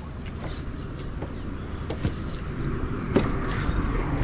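Steady wind and lapping of choppy water around a kayak, with a few light knocks of gear against the hull.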